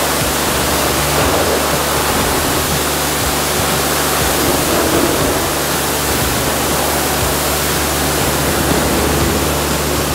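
High-pressure washer wand spraying water over a car to rinse off the shampoo after a hand wash: a loud, steady hiss of spray with a steady low hum beneath it.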